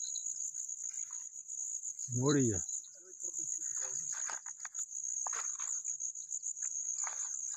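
Insects trilling steadily at a high pitch, with faint scattered clicks and scrapes in the second half.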